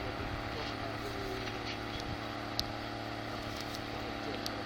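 Steady drone of a heavy farm machine's engine running at constant speed, with a couple of faint short clicks.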